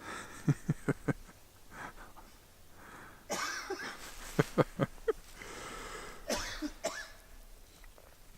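A person coughing in three short fits, each a rush of wheezy breath followed by a quick run of coughs.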